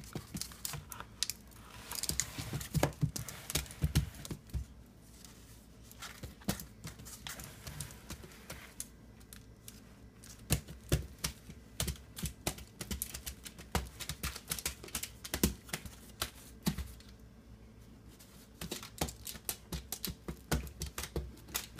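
Hands pressing and patting play-dough onto an aluminium-foil base: a run of irregular small clicks, taps and foil crinkles. They are busiest in the first few seconds and again from about halfway on, with a sparser stretch between.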